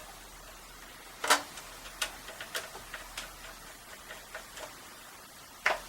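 A few irregular clicks and light knocks, a sharper knock about a second in and another near the end: the casing of a just-reassembled Ford car radio being handled.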